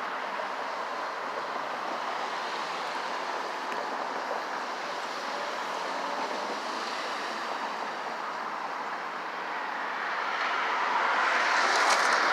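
Steady rushing noise of passing vehicles, swelling louder over the last couple of seconds as one draws near.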